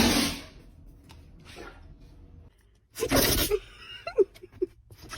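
A dog sneezing twice: one sharp sneeze right at the start and a second, louder one about three seconds in, followed by a few short snuffles.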